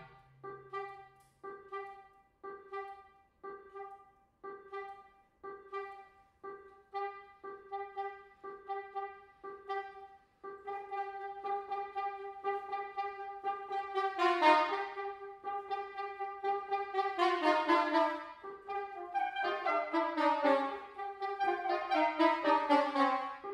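Two soprano saxophones playing a minimalist duet. A single note is repeated in short detached pulses, about one and a half a second, and the notes come faster from about ten seconds in. In the second half the line breaks into quick falling runs.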